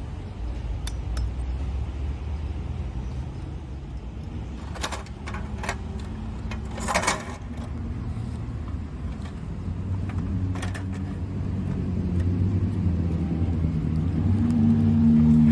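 Scattered sharp clicks and clinks of a folding camping table's metal parts being handled, the loudest about seven seconds in. Under them runs a steady low rumble like a running vehicle engine, growing louder near the end.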